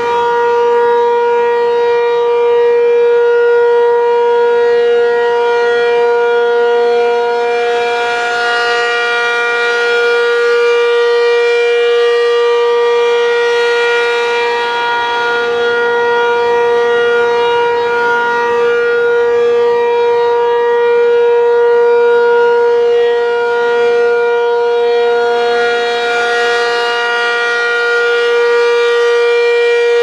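Werden P-127 single-tone rotating outdoor warning siren sounding a steady full-alert tone. The pitch holds level, while the sound swells and brightens twice as the rotating horn sweeps toward the listener. The siren has a collapsed intake and still sounds very punchy.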